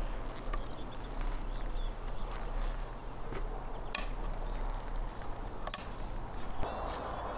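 Scattered clicks and knocks of a knife and hands working a whole plucked goose on a wooden board tabletop, over a low steady rumble.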